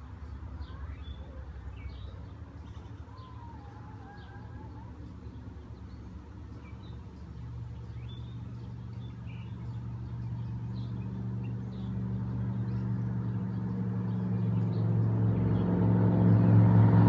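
Honeybees buzzing around an opened four-frame nuc, a steady hum that swells as a frame thick with bees is lifted out of the box. Faint bird chirps sound early on.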